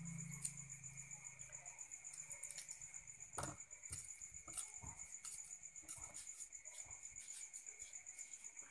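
Faint crackles and sharp clicks of a boiled balut (duck egg) shell being peeled apart by hand, the loudest click about three and a half seconds in. Crickets chirr steadily underneath.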